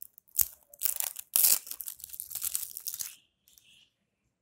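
Plastic packaging of a blusher compact being torn open and crinkled: one sharp snap, then about two seconds of crackling and tearing, loudest about a second and a half in.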